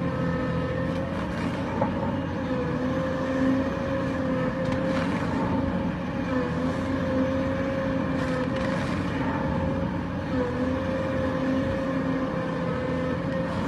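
Kobelco SK480LC crawler excavator's diesel engine running under load with a steady whine that wavers slightly, as its ripper tooth tears through broken rock, with a few faint cracks and scrapes of rock.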